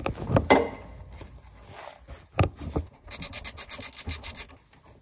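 Wrench work on a rusted bolt under the car: a few sharp knocks and scraping, then a fast even run of clicks, about ten a second, lasting over a second.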